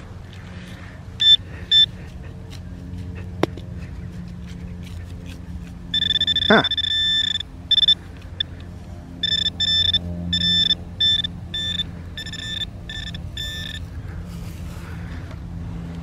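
Handheld metal-detecting pinpointer beeping as it is probed through the dig hole for a buried metal target: two short beeps, one long tone, then a run of short beeps about two to three a second. A steady low rumble sits underneath.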